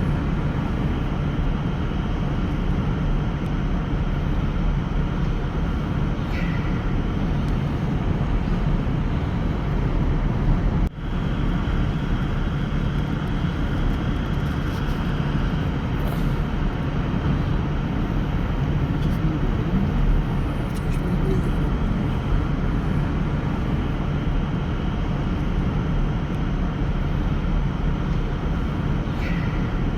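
Steady low rumble of a vehicle driving, engine and road noise, which cuts out for a moment about eleven seconds in.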